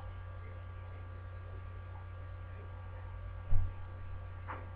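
Steady electrical mains hum with a faint whine from the webcam's recording, broken by a single sharp thump about three and a half seconds in.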